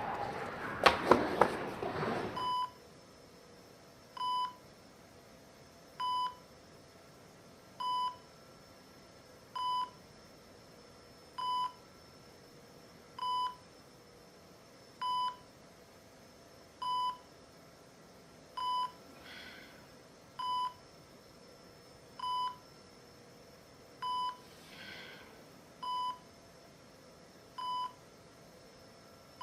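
Hospital patient monitor beeping evenly, one short single-pitched beep about every 1.8 seconds. A few sharp knocks and clatter come in the first two seconds.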